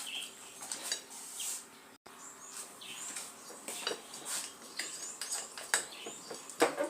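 A fork whisking thick bhajia batter in a bowl: irregular soft scrapes and clinks against the bowl, getting louder near the end.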